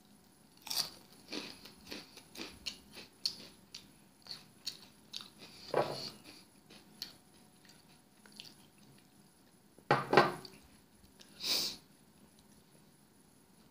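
Close-up crunching and chewing of Flaming Hot Cheetos: a quick run of crisp crunches over the first few seconds that thins out, with a few louder single sounds in the second half.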